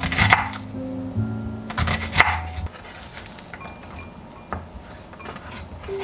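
Chef's knife slicing through an onion onto a wooden cutting board: a couple of sharp cuts in the first half, then fainter clicks, over soft background music.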